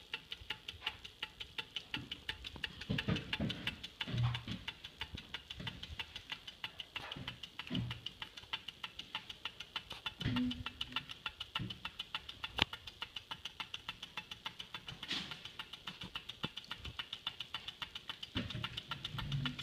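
Sunnytech LT001 low-temperature Stirling engine running on the heat of a cup of hot water, its flywheel turning and its piston and displacer linkage giving a steady, rapid ticking of several clicks a second.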